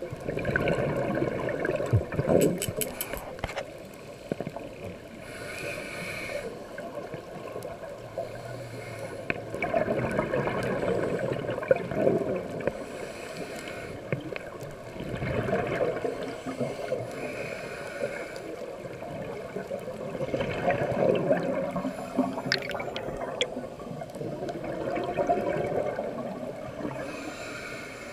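Scuba breathing underwater: exhaled bubbles from a regulator gurgle in swells every few seconds, with a fainter hiss between them.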